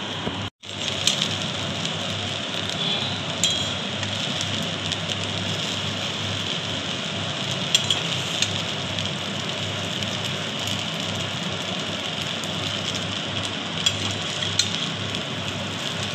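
Noodles and vegetables sizzling steadily in a hot metal wok, with a few sharp clicks and scrapes of a metal spatula as they are tossed and mixed.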